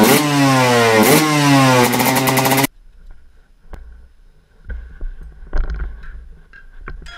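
Motorcycle engine revving hard in two sharp throttle blips, about a second apart, each followed by the revs falling away, cut off abruptly just under three seconds in. After that, faint rustling of a padded jacket and gloves with a few light knocks.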